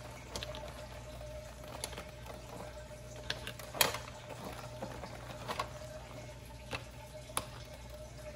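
Scattered light clicks and taps of a screwdriver and the hard plastic parts of a Billy Bass singing fish being handled, with one sharper click about four seconds in, over a steady low hum.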